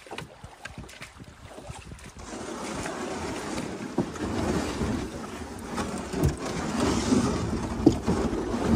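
Wind buffeting the microphone in an open canoe, coming up about two seconds in and staying rough and steady, with a few sharp knocks along the way.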